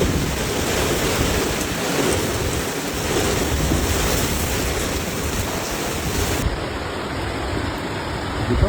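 Steady rushing noise of a thunderstorm's wind and heavy rain, with wind buffeting the microphone. About six and a half seconds in, the highest hiss drops away.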